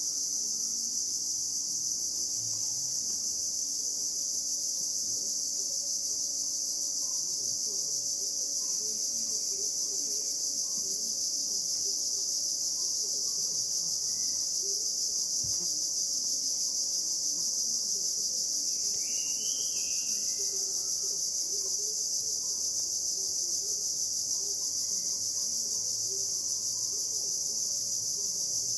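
Steady, high-pitched chorus of insects droning without a break. A single short bird-like call sounds about two-thirds of the way through.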